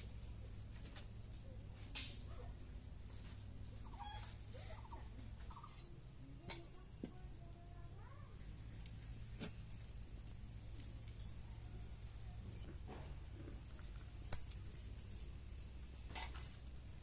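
Quiet open-air ambience with a low steady hum and faint bird chirps, broken by a few sharp clicks and knocks of cookware being handled. The loudest knock comes about fourteen seconds in.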